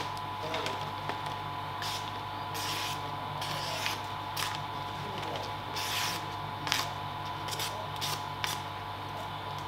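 A sheet of stickers crinkling and rustling as it is handled and peeled, in short scattered bursts. A steady low hum runs underneath.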